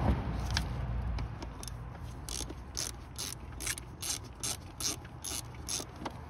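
Socket ratchet wrench clicking in even strokes, about two to three clicks a second, as a bolt on the car's air box is undone.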